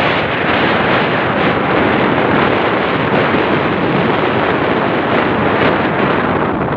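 Steady, loud rush of wind buffeting the microphone of a camera held by a rider on a moving motorcycle.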